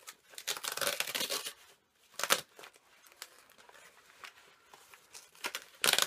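Parcel packaging being torn open and crinkled by hand, in irregular bursts: a long rustle early, a sharp tear a little after two seconds, light crackling, then a loud rip near the end.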